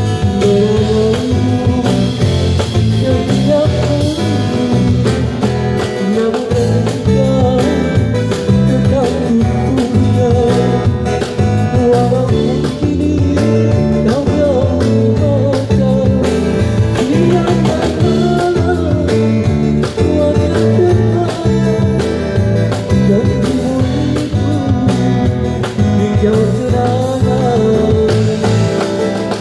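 Street buskers playing a song: a singer's voice carrying the melody over a strummed guitar accompaniment.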